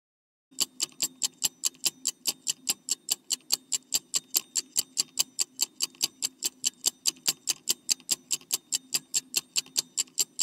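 Quiz countdown-timer sound effect: clock-like ticking, about three to four ticks a second, over a faint low hum, starting about half a second in.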